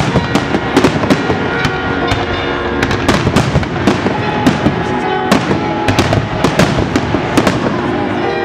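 Fireworks display: aerial shells and comets bursting in rapid, irregular bangs and crackles, several a second, with music playing underneath.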